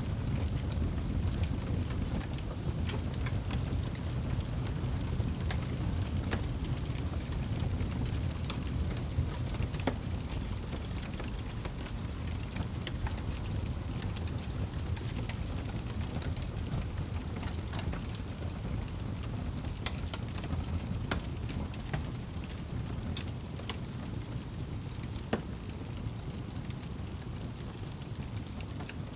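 Wood fire in a fireplace crackling, with many irregular sharp pops over a steady low rumble of burning.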